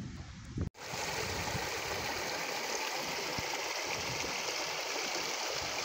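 Small mountain brook rushing steadily over rocks, starting abruptly about a second in.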